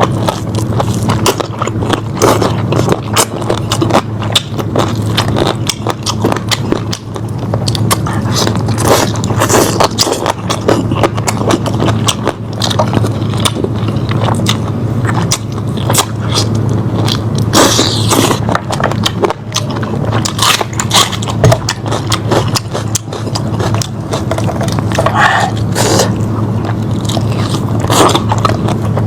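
A person biting and chewing boiled lamb chops up close: a dense run of short sharp clicks and smacks throughout, over a steady low hum.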